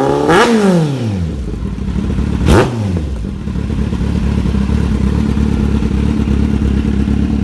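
Kawasaki Z800's inline-four engine with a Racefit GP slip-on exhaust, revved once near the start and blipped sharply again a couple of seconds later, each time falling back, then idling steadily.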